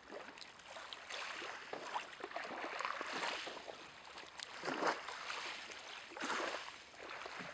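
Kayak paddle strokes in calm water: a soft splashing swish every second or two over gentle lapping.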